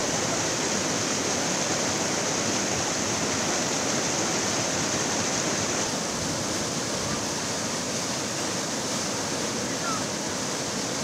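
Fast-flowing muddy floodwater rushing and churning, a steady unbroken rush of water.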